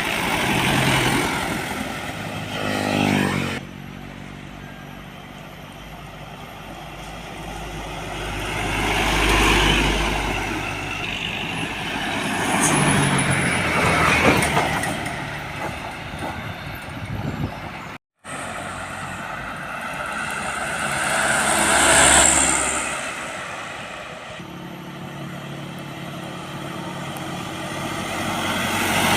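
Heavy trucks driving past on a road one after another, each engine and its tyre noise swelling up and fading away. Near the start one engine's pitch climbs as it accelerates, and about two-thirds of the way through a pass carries a short high hiss.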